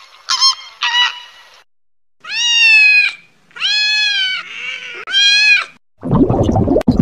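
Flamingos honking in short calls for the first second and a half, then a kitten meowing three long times with a softer, lower meow between the last two. From about six seconds in there is a rough rushing noise from underwater footage.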